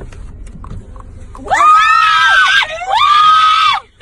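Two loud, high-pitched screams, each about a second long, starting about a second and a half in.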